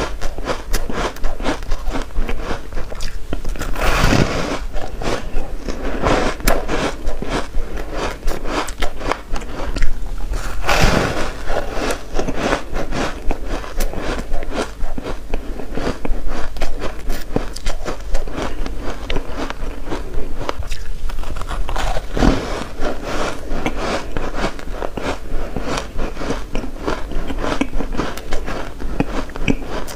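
Biting and chewing a block of squeaky powdery refrozen ice dusted with matcha powder: close-up crisp crunching, with big bites about four, eleven and twenty-two seconds in.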